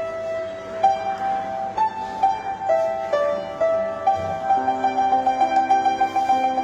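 Solo piano playing a slow Thai popular-song melody over sustained chords. About four and a half seconds in, the right hand switches to one high note struck again and again in quick succession over a held chord.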